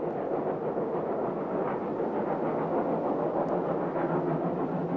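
Dubbed-in sound effect of a steam train running along the line: a steady, even rumble with no break or change.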